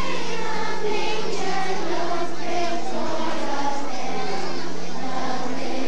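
Children's choir singing a slow song, the voices holding long notes, over sustained low accompaniment notes.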